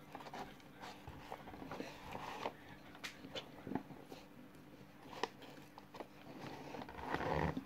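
Dry cornflour being sucked up through a plastic straw and chewed: scattered small clicks and crunches, with a denser, louder stretch near the end.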